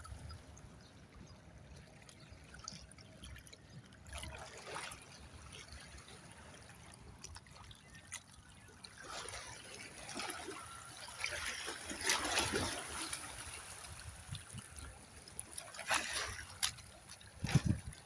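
Faint water trickling and lapping, with a few louder splashy stretches.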